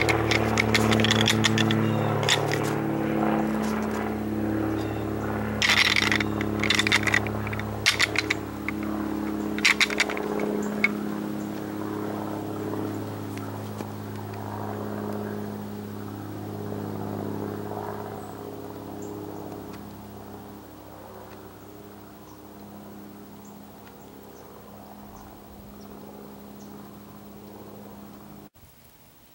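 A distant engine droning steadily and slowly fading away. A few sharp scrapes or clicks come in the first ten seconds.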